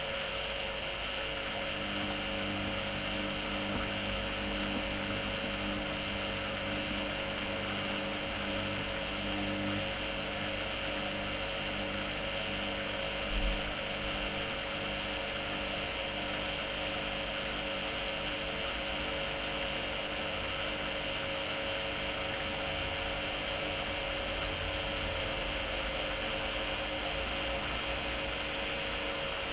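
Privileg 370 S washing machine running with a steady electric-motor hum made of several fixed tones, and one brief low thump about halfway through.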